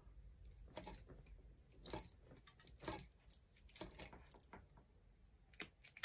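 Faint, scattered small clicks and scrapes of pliers twisting stripped copper wire strands together.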